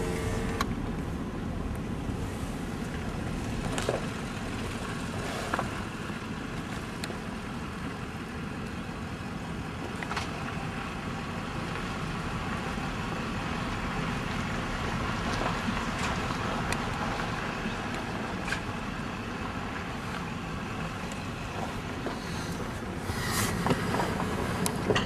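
Steady road and engine noise heard from inside the cab of a 2004 Toyota Tacoma pickup on the move, a low even rumble with a few light clicks.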